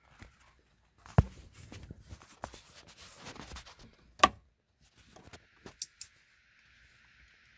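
Handling noise: rustling with a few sharp clicks and knocks, the loudest about a second in and just after four seconds, then a couple of light ticks. Near the end a faint steady high hum sets in.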